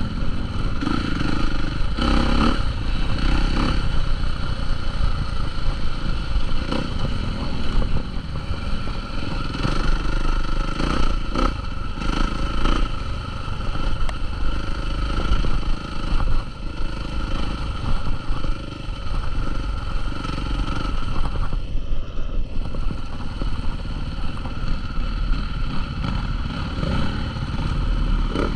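Motocross dirt bike engines running and revving, a loud continuous din with a few brief knocks.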